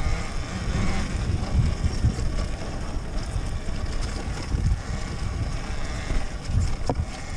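Wind rumbling on the microphone while riding a Talaria Sting MX4 electric dirt bike over rough forest singletrack, with uneven low thumps from the bike jolting over the ground. The electric motor itself is almost silent.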